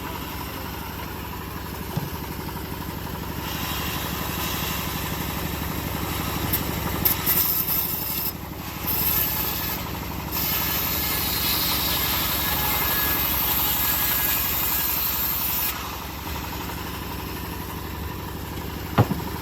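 Homemade bandsaw mill's engine running steadily while the blade cuts through old teak: a hissing rasp comes in about four seconds in and stops about sixteen seconds in. A sharp knock near the end.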